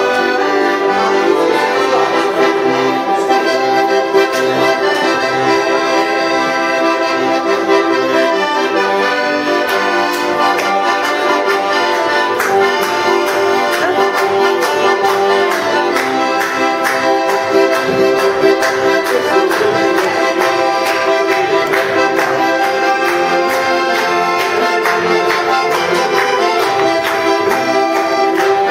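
Piano accordion playing a traditional tune: sustained chords under a moving melody, with frequent light clicks over the top.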